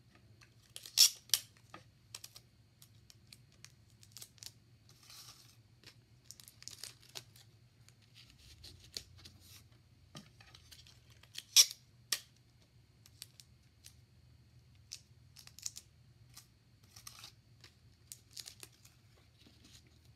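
Construction paper being handled and stuck onto a paper backing: rustling and short, sharp crackles and rips of paper or tape, scattered throughout, the loudest about a second in and again just past halfway.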